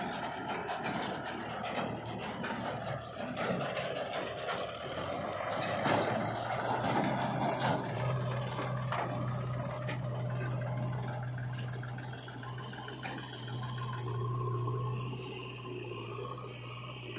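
Diesel engines of a JCB 3DX backhoe loader and a Mahindra tractor running, with scraping and rattling of soil and clods being loaded into the tractor's steel trolley through the first half. From about halfway a steady low engine hum is the main sound.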